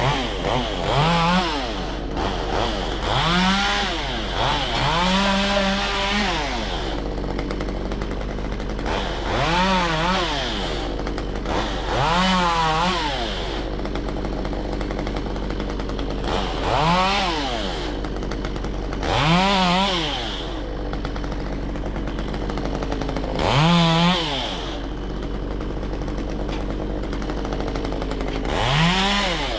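Stihl MS193T two-stroke top-handle chainsaw idling and being revved in short bursts, about nine times. Each time the pitch rises sharply, then drops back to idle.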